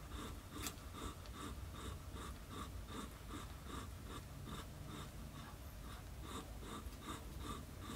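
Newborn kittens suckling at their mother, soft wet smacking about three times a second, over a low steady hum.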